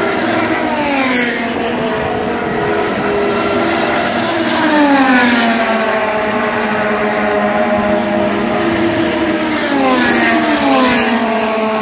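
Indy Lights open-wheel race cars lapping an oval at speed. The engine note falls in pitch as the cars go by, with louder passes about four and a half seconds in and again about ten seconds in, over a steady drone of cars elsewhere on the track.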